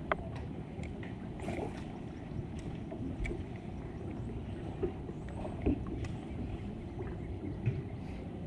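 Steady low rumble of wind and water around a bass boat, with scattered faint clicks and taps.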